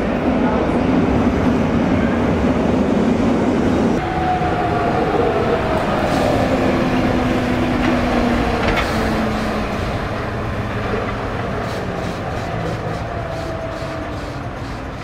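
Rhaetian Railway diesel shunting locomotive no. 231 running as it hauls freight wagons past, its engine a steady drone with wheels clicking over the rails. The sound grows fainter over the last few seconds as the train moves off.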